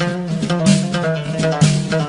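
Background music: plucked-string instrumental with a bass line and a regular beat.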